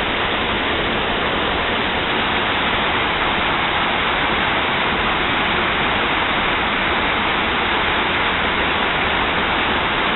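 Waterfall's rushing water: a loud, steady rush that never lets up.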